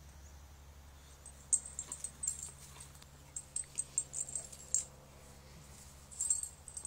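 An American Staffordshire terrier and a puppy play-wrestling on grass: bursts of short clicks and rustling from their scuffling, coming in several clusters over a steady low hum.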